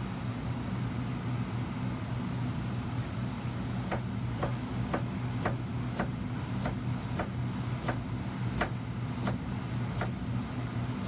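Kitchen knife cutting stacked slices of a white vegetable into sticks on a plastic cutting board: sharp knocks of the blade on the board, roughly one every half second, starting about four seconds in, over a steady low hum.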